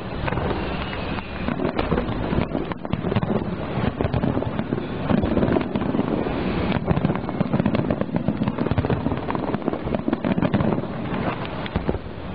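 Fireworks finale barrage: many shell bursts and crackles going off so close together that the bangs run into one continuous loud rumble with no gaps.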